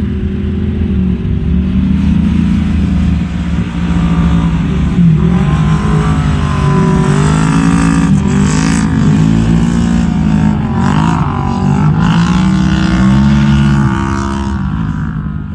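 Turbocharged side-by-side UTV engine racing, its pitch rising and falling again and again as the throttle is worked on and off.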